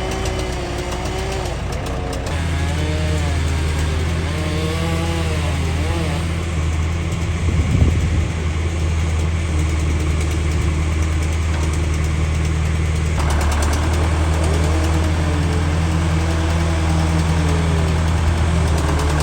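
Heavy-equipment engine running steadily at a low, even pitch. It gets louder about two seconds in, with a brief knock near eight seconds.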